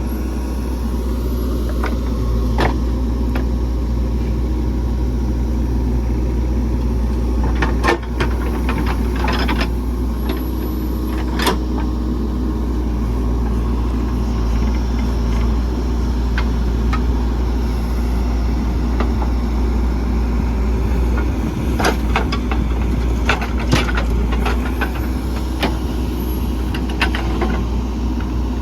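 Heavy diesel engines running steadily while a JCB 3DX backhoe loads mud into a tractor. Scattered sharp knocks and clanks come through the engine noise, several around a third of the way in and again near the end.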